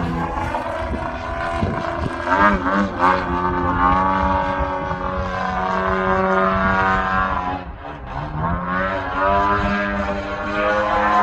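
DLE-130 twin-cylinder gas engine of a 35% Extra 330SC model aerobatic plane turning a 28x10 propeller, its pitch rising and falling with the throttle. It throttles back and drops in pitch about eight seconds in, then powers up again.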